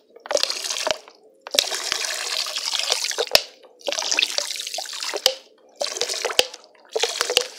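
Alcohol vinegar glugging out of a plastic bottle into a basin of used cooking oil and lye solution, splashing in several spurts with short pauses in between because it is slow to come out, with a few sharp clicks.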